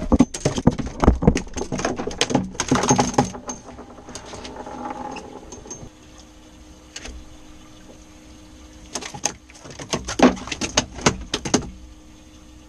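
Two bursts of quick clattering knocks, one at the start and another about nine seconds in, from a freshly caught flounder being handled on a fiberglass boat deck.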